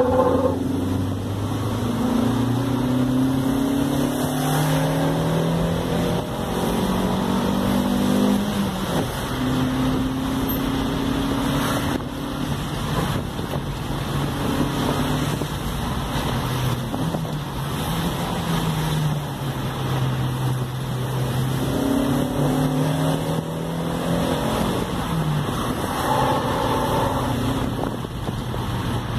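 Volkswagen Saveiro pickup's engine and road noise heard from inside the cab while driving. The engine note rises as it pulls and drops back at each gear change, several times over.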